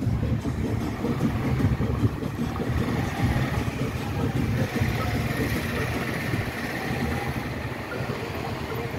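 Engine and road noise of a moving vehicle: a steady, unbroken low rumble.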